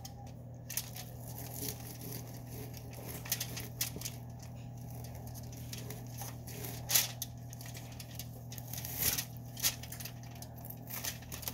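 Knife slicing raw chicken breasts on a foil-lined pan: scattered soft crinkles, taps and wet handling noises, the loudest about seven seconds in, over a low steady hum.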